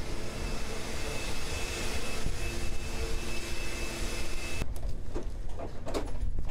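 A vehicle engine running under heavy hiss, with a few steady tones; about four and a half seconds in the sound cuts abruptly to a duller noise with several short knocks.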